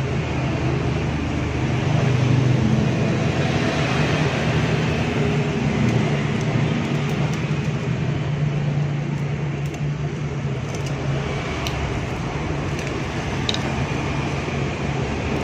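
Steady low mechanical hum with a noisy hiss over it, and a few faint ticks in the second half as copper winding wire is pressed into the stator slots by hand.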